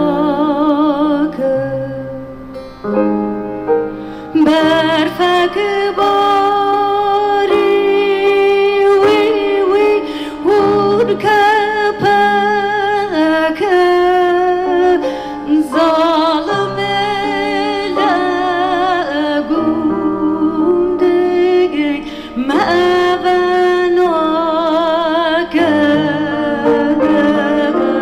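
A woman singing a folk melody with wide, wavering vibrato while plucking her own bağlama (long-necked saz) as accompaniment.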